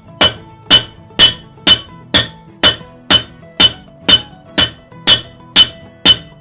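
Blacksmith's hand hammer striking a glowing iron nail held in a header rod over the anvil's hole, thirteen sharp metallic blows at about two a second: forging the nail's flat head.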